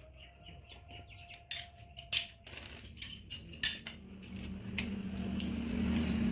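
Metal tools or parts clinking and clanking, with a few sharp strikes, then a low hum that swells near the end.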